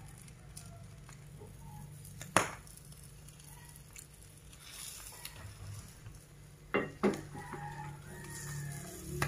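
A metal fork knocks against a frying pan once about two seconds in and twice in quick succession near seven seconds. A rooster crows faintly in the background.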